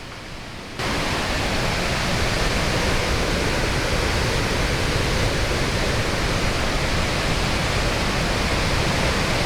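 Iguazu Falls waterfall: a loud, steady rush of falling water, cutting in abruptly about a second in.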